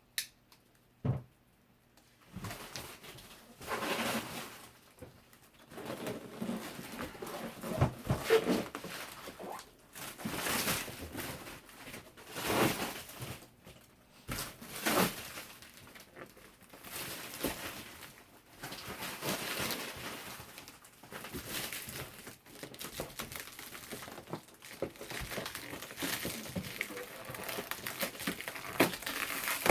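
Packaging being handled while a subwoofer is unboxed: irregular crinkling and rustling with scattered handling knocks.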